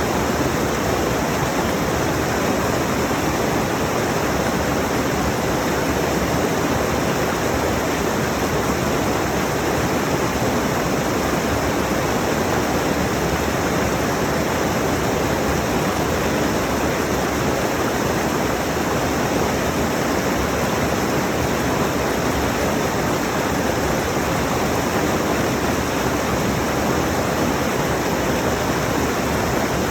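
Rushing mountain stream: a steady, unbroken rush of water over rocks.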